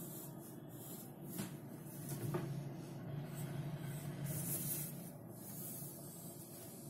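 Pencil scratching across paper as a line is drawn: a soft hiss that comes and goes with the strokes, over a steady low hum.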